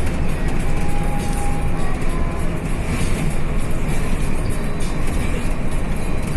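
Mercedes-Benz diesel bus engine running under way: a steady, loud rumble of engine and road noise.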